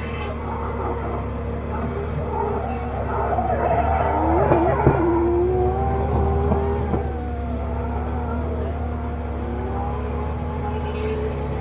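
Nissan 200SX drift car's engine revving up and down through a slide, with tyre noise, loudest about four to five seconds in.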